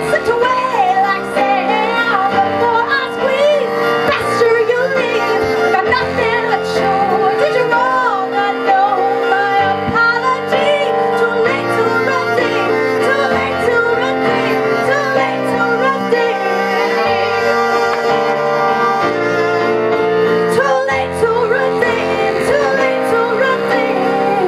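A woman singing live to her own electronic stage-piano accompaniment. Her voice moves over held chords that change every couple of seconds.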